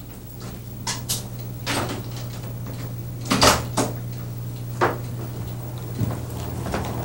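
A series of sharp knocks and clatters, about eight of them with the loudest pair about three and a half seconds in, over a steady low hum.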